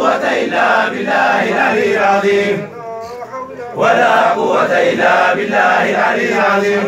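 Group of men chanting a Harari zikri, a Sufi devotional menzuma, together in two long phrases with a short break about three seconds in.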